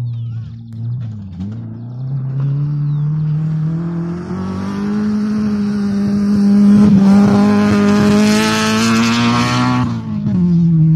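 Rally car engine at high revs on a gravel stage, its note climbing and growing louder as the car approaches. Near the end it passes close with a rush of tyres on loose gravel, and the pitch drops.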